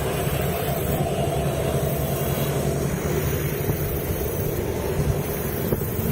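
Helicopter in flight: a steady, dense rotor and engine noise with a rapid low throb.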